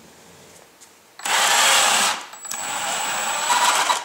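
Electric drive motors of a featherweight combat robot whining in two bursts, the first about a second long, the second about a second and a half, then cutting off suddenly at the end.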